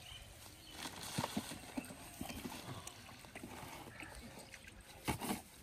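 Scattered light knocks and rustles of people moving and handling things, with a louder short sound about five seconds in.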